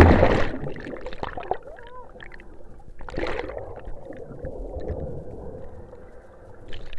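Water rushing and splashing as a motor boat's propeller wash churns the sea and tips a banana boat over, loudest at the start with a second surge about three seconds in, over the steady drone of the boat's engine.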